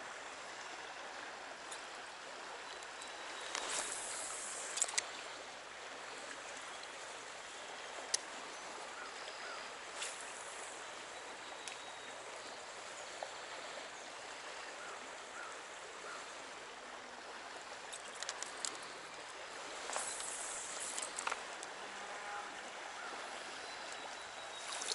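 Small trout stream flowing steadily, with a few short sharp noises, some of them splashy, about four to five seconds in and again near the end.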